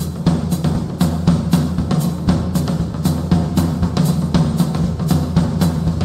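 Background music with a steady drum beat, about two strong hits a second over a sustained low bass line.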